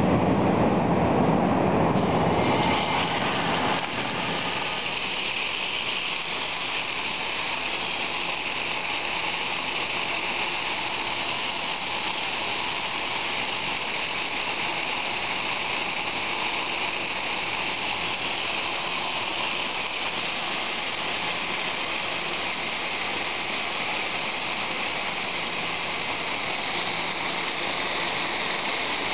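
Fire alarm bells on a Mircom FA-1000 system ringing continuously under test. The ringing is heavier for the first three or four seconds, then holds steady.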